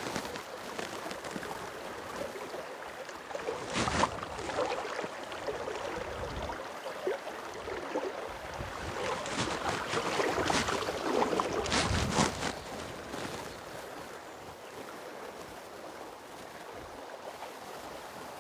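River water flowing and splashing, with a steady rush and a few sharper splashes: one about four seconds in and two around ten to twelve seconds in.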